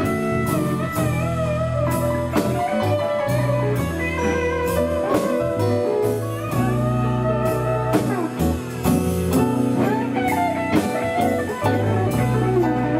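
Live blues band playing: a guitar lead with bent, wavering notes over a walking bass line and a steady drum beat.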